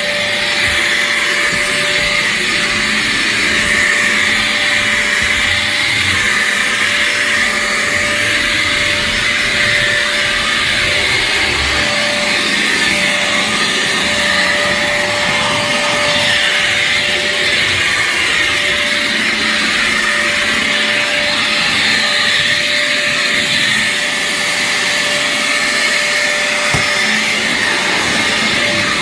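Dirt Devil Razor Pet bagless upright vacuum running steadily and loudly: a constant rushing hiss with a thin steady whine.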